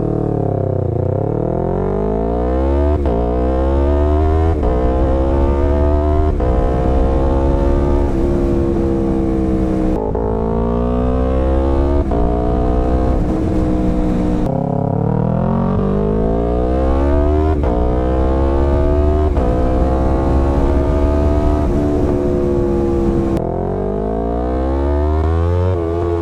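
Yamaha R3's 321 cc parallel-twin engine through a full Akrapovic exhaust, accelerating hard through the gears. Its pitch climbs and drops back at each quick upshift from the quickshifter. It eases off twice, about a third of the way in and near the end, before pulling again.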